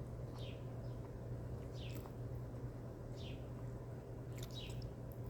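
Small birds giving short, high chirps that fall in pitch, about one every second or so, over a steady low hum.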